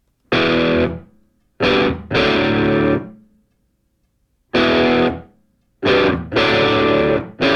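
Background rock music: distorted electric guitar chords, each struck and held for about a second, with short silent gaps between them.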